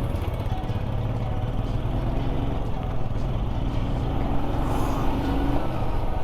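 Royal Enfield Himalayan's single-cylinder engine running steadily while riding, under a constant wash of wind and road noise.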